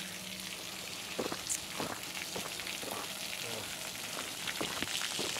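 Fuel spurting in several streams from holes in a tanker truck's tank and spattering onto the road, a steady crackling hiss.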